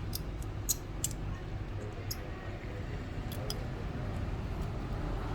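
Light, sharp clicks and ticks of repair tools handling small parts of a smartphone screen assembly, about six in all, the loudest in the first second and a pair about three and a half seconds in, over a steady low background hum.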